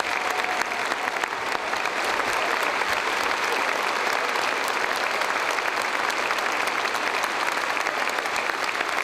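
A large concert-hall audience applauding steadily, a dense mass of many hands clapping.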